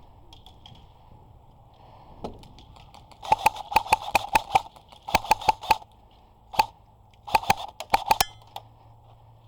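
Airsoft gun firing three rapid strings of sharp shots, about seven a second, with a single shot between the second and third strings.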